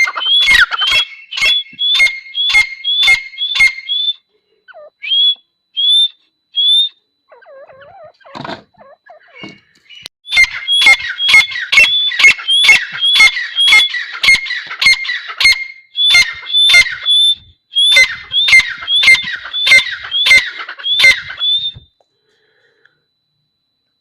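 Teetar partridge calling: a loud series of sharp, ringing, hooked notes repeated about twice a second. A first run stops after about four seconds, a few single notes and a softer sound follow, then a long run starts about ten seconds in and stops a couple of seconds before the end.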